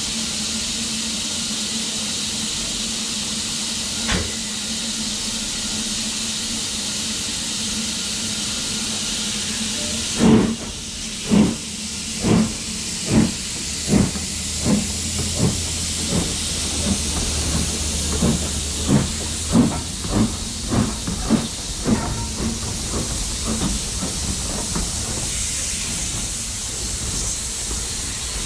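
Steam locomotive hissing steadily. About ten seconds in it pulls away with exhaust beats that start about a second apart and quicken until they run together.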